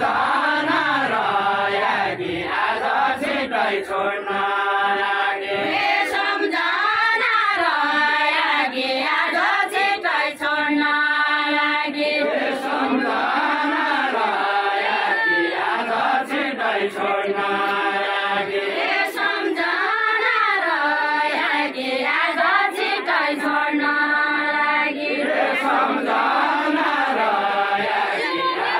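Men singing a Deuda, the unaccompanied folk song of far-western Nepal, together in unison: a slow melody of long held notes that waver, rising and falling in long phrases.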